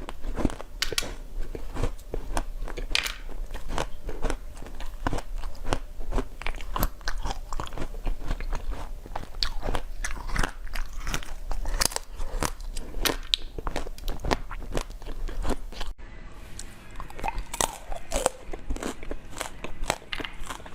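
Close-miked crunchy biting and chewing of food, a dense run of irregular crunches and crackles, with a sudden change in sound about three-quarters of the way through.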